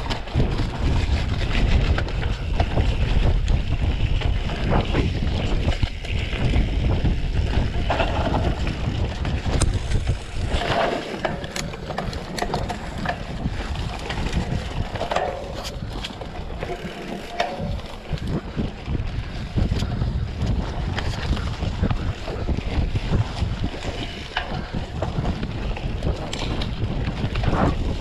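Wind rushing over the microphone of a mountain bike riding fast down a bumpy dirt forest trail, with the bike's rattle over the ground and scattered sharp clicks and knocks.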